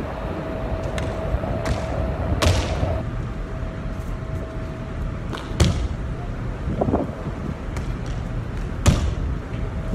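Sharp thuds of feet striking a ship's deck as a person takes off and lands flips, the three loudest coming about three seconds apart. Under them runs a steady low rumble and a faint steady hum.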